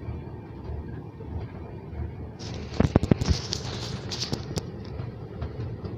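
Passenger train running with a steady low rumble. About two and a half seconds in, a burst of sharp crackling clicks lasts roughly two seconds and is the loudest sound.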